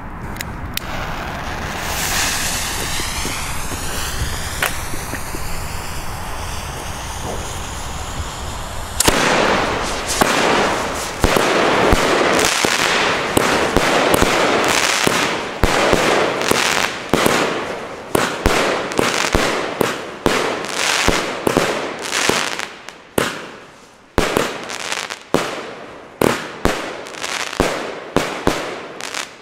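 A 19-shot, 30 mm Pyro Specials 'The Gambler' firework battery firing. After about nine seconds of steady hiss, the shots start suddenly: dense launches and bursts at first, then separate loud bursts about one a second, each fading, until the battery finishes near the end.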